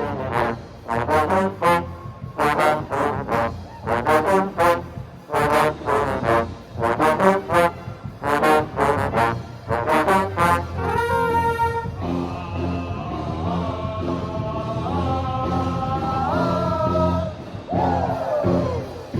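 Pep band trombone section playing: short punchy repeated notes for about the first eleven seconds, then a rising slide into long held chords, ending with a falling glissando near the end.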